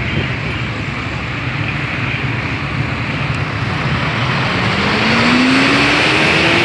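Road traffic noise, with a vehicle engine rising steadily in pitch as it speeds up over the last two seconds.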